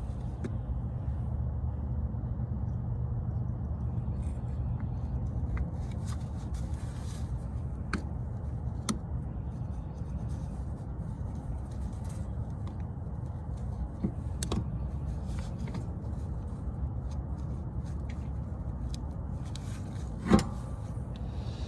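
Scattered light metallic clicks and taps as an electric parking-brake actuator is worked onto a rear brake caliper, with one louder knock near the end, over a steady low hum.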